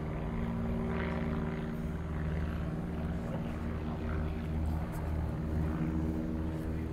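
Steady low engine drone: several constant hum tones with a slow throb underneath, holding level throughout.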